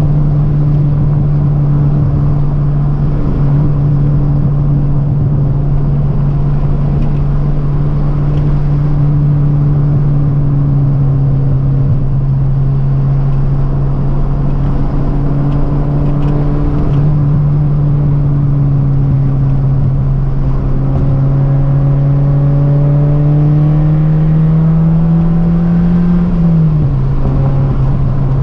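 1989 Toyota Celica GT-S four-cylinder engine under way, heard from inside the cabin over road and tyre noise. The engine note holds fairly steady, climbs slowly toward the end, then drops sharply at a gear change and starts climbing again.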